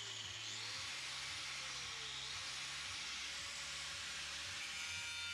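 Angle grinder with a thin cutting disc running at full speed and cutting into a sheet-steel box: a steady, loud hiss, with faint ringing tones joining in the second half as the disc bites the steel.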